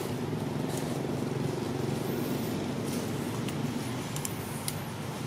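A motor engine running steadily, an even low hum with no change in speed.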